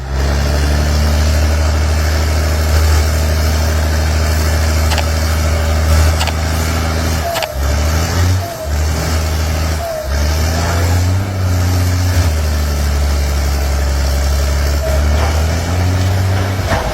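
Excavator's diesel engine running hard under load as it pushes against a large tree. Its pitch drops and recovers briefly a few times past the middle, with a few short squeaks.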